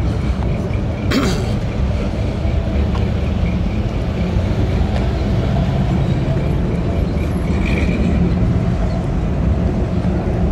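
Steady low rumble of outdoor background noise, with a short sharp crackle about a second in.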